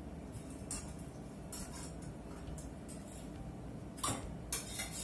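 Metal kitchen tongs clinking against a wire baking rack and a plate as chicken wings are lifted and set down: scattered light clinks, with two louder ones about four seconds in.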